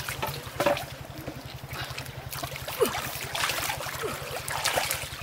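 Engine-driven water pump running steadily with a low, fast pulsing, while water splashes and trickles around people wading and grabbing catfish in the shallow muddy water.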